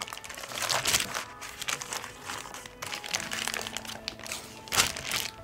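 Baking paper crinkling and rustling as it is lifted and folded over to wrap a bacon-covered meatloaf, in irregular bursts with the loudest crinkle near the end.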